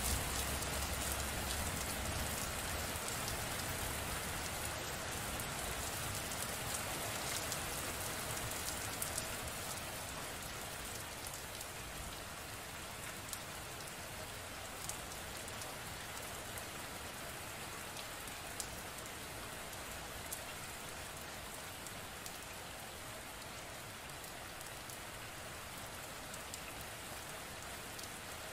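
Steady rain falling, an even hiss with scattered sharper drop ticks. A low rumble underneath fades out in the first few seconds, and the rain eases a little over the first ten seconds.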